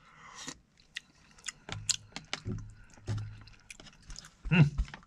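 A spoon clicking and scraping against a plastic container as a spoonful of smoked-clam chowder is scooped up and tasted, with chewing sounds between the clicks. A brief louder low sound comes near the end.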